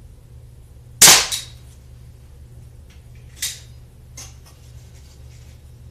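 A shot from a Mondial Oklahoma .177 smoothbore spring-piston pellet pistol: one sharp crack about a second in with a quieter knock just after it, then a smaller snap and a few faint ticks.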